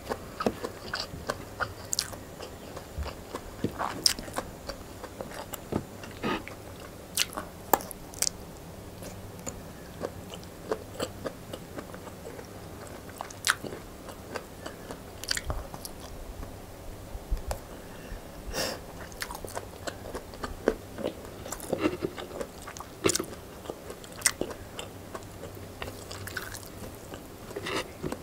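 Close-miked chewing of a mouthful of rice and side dishes eaten by hand, with many short, sharp, wet mouth clicks scattered irregularly.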